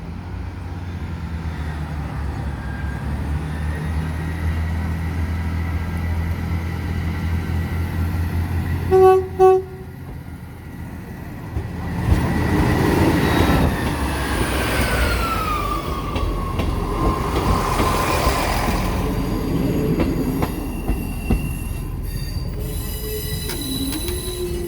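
A diesel train's engine running steadily, then a short two-note horn blast. The train then passes with its wheels rumbling on the rails and a squeal that falls in pitch.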